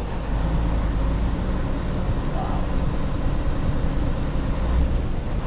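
Steady low engine and road rumble heard inside a semi-truck's cab.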